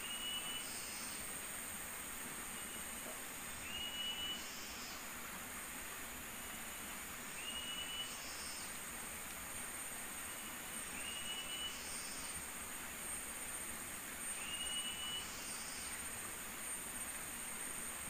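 Rainforest ambience: a steady hiss with a thin, high, unbroken drone on top, and a short whistled call, dropping slightly at its end, repeating about every three and a half seconds.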